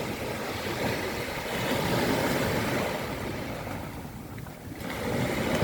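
Sea washing on the shore with wind buffeting the microphone, a rough steady rush that swells, dips briefly about four seconds in, then rises again.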